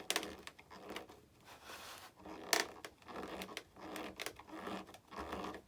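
Hand screwdriver turning a small screw into the plastic hinge of an RC jet's elevator, with scraping and a few sharp clicks, the loudest about two and a half seconds in.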